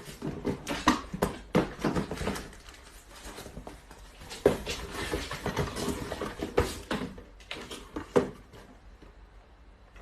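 A dog playing, with irregular knocks and scuffles that thin out near the end.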